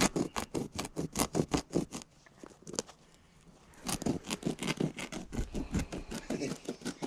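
Carpet being cut by hand, about five quick rasping cutting strokes a second, with a pause of about two seconds midway.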